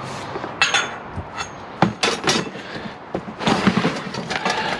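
Junk being pulled out and handled while sorting through a box of scrap: a few sharp knocks and clunks, then denser rummaging and clattering in the second half.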